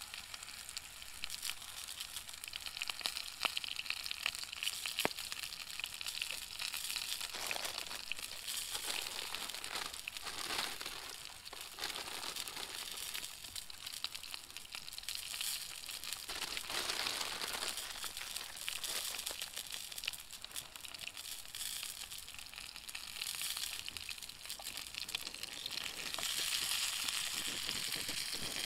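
Food frying over a campfire: a steady sizzle with many small crackles and pops, swelling a few times.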